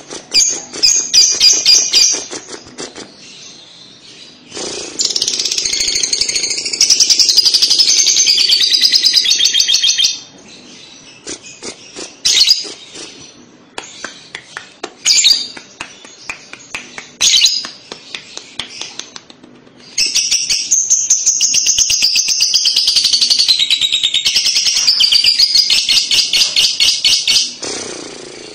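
Lovebird singing its long chattering 'ngekek' song: two sustained, very fast high trills, the first about five seconds and the second about seven and a half seconds long, with short bursts of chirping before and between them.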